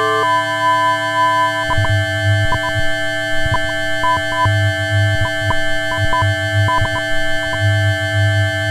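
Dexed FM synthesizer, a Yamaha DX7 emulation, playing a sustained chord of steady tones; a higher note drops out about a second and a half in and a low bass note starts sounding on and off with clicks at each change.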